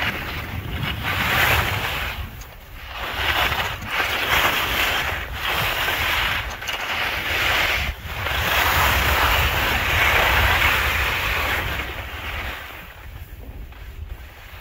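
Hiss and scrape of edges carving packed snow on a downhill run, swelling and fading several times with the turns, over wind rumble on the microphone.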